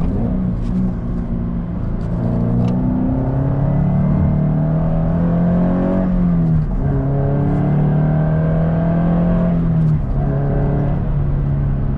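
Subaru BRZ's flat-four engine through a Borla stainless axle-back exhaust, heard from inside the cabin, accelerating through the gears. The engine note climbs, drops at an upshift a little past halfway, climbs again and drops at a second upshift near the end.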